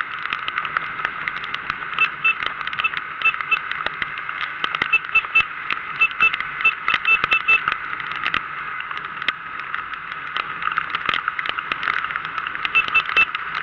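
Muffled, steady noise of riding in the rain, with raindrops ticking sharply and irregularly against the microphone. Short runs of a faint high beep come and go, about two seconds in, around five to seven seconds in, and near the end.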